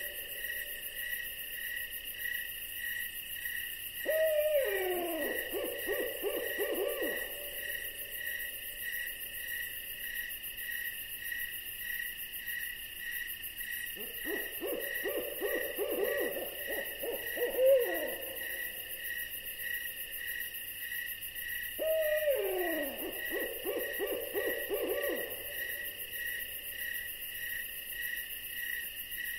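An owl calls three times, each call a falling, quavering cry that breaks into a rapid trill; the middle call is a longer trill. Behind it an insect chirps steadily, about twice a second.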